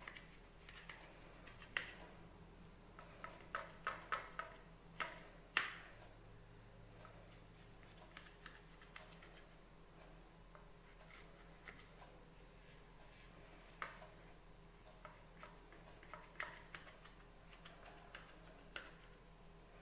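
Kitchen knife clicking and tapping against a stainless steel plate as it slices soft Mysore pak into pieces: faint scattered clicks, a quick cluster of them about three to six seconds in, sparser after.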